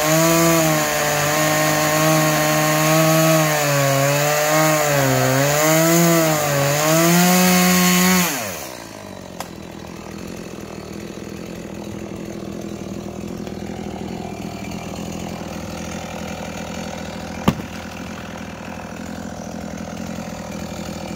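Stihl chainsaw cutting through a log at full throttle, its pitch wavering as the chain bites into the wood. About eight seconds in the throttle is released and the engine speed drops away sharply. A quieter steady background noise follows, broken by one sharp click near the end.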